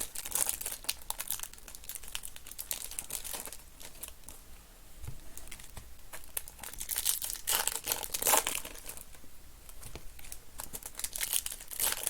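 Trading card packaging being handled and opened: wrappers crinkling and tearing in irregular bursts of rustling, heaviest about two-thirds of the way through and near the end.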